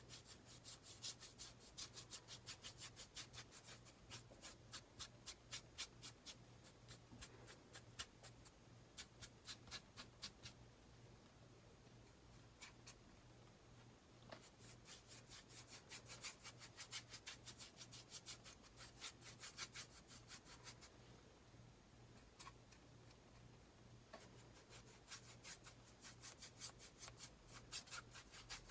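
Wet soft synthetic brush scrubbing back and forth over a textured canvas panel. It makes faint scratchy strokes, about five a second, in spells with short pauses between them.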